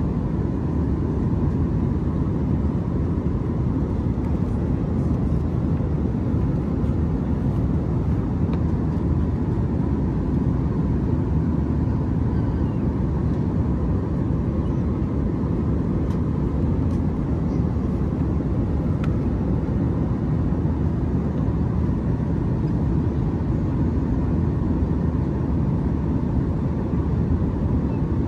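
Steady cabin noise of an Airbus A321 in flight: an even rush of airflow and engine noise, heaviest in the low range, with a faint steady tone riding on top.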